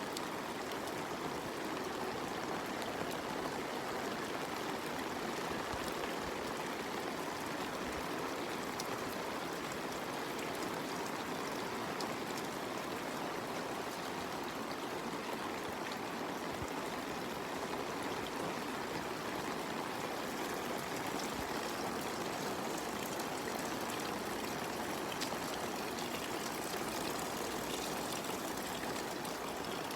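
Steady rain with water running, a continuous even hiss sprinkled with faint ticks of single drops.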